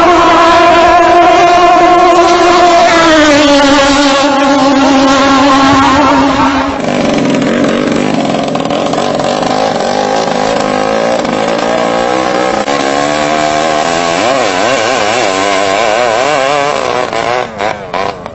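Engines of long-tail racing boats running at high revs, a steady high note that drops slightly about three seconds in. About seven seconds in the sound changes to a lower engine note that wavers up and down in pitch, with brief dropouts near the end.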